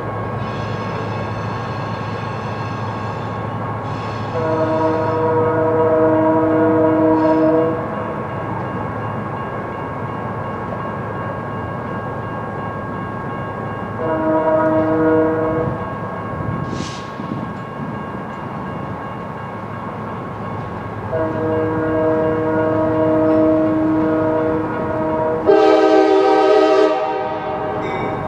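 Locomotive air horn on an approaching train, sounding three long blasts several seconds apart, the last swelling louder and fuller near the end. The blasts are a grade-crossing warning.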